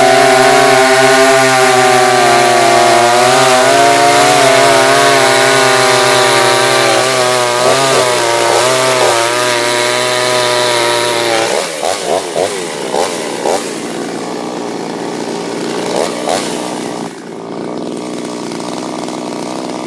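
Chinese clone two-stroke chainsaw at full throttle cutting through a maple log, its pitch wavering under load. About halfway through it drops back to a lower, quieter run, with a few short blips of the throttle.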